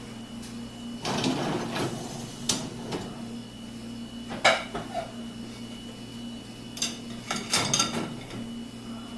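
Dishes and cutlery clinking and clattering in several short bouts, as when a dishwasher is being loaded or its racks handled, over a steady low hum.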